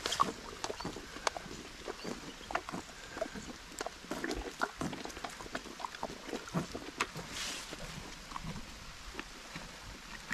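Donkeys crunching and chewing chunks of watermelon rind, a run of irregular wet crunches and bites.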